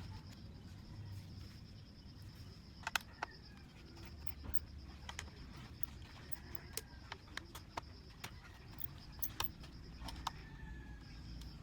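Scattered light clicks and taps from laptop parts and small screws being handled during a CPU swap, with two sharper clicks about three seconds in and a cluster of taps in the second half. A steady high-pitched tone and a low hum run underneath.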